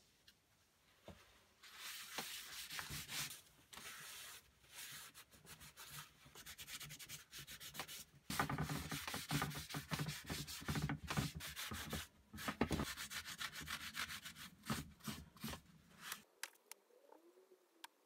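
Paper towel rubbing and wiping over the bare metal of a vise body, in irregular strokes that get busier and louder about halfway through and stop shortly before the end.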